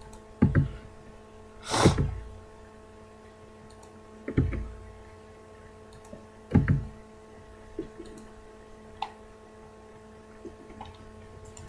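Steady electrical hum on a desk microphone, with a handful of soft clicks and thumps spread through and one short breathy noise about two seconds in.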